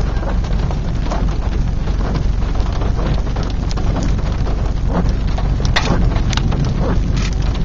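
Heavy rain beating on a vehicle, with many irregular sharp drop hits over a steady low rumble.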